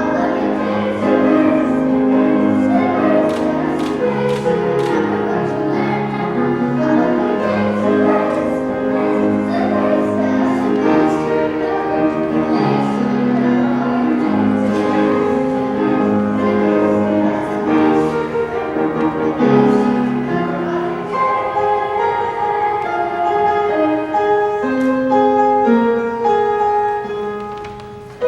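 Children's choir singing a song with piano accompaniment. About two-thirds of the way through the voices give way to the piano alone, which fades near the end.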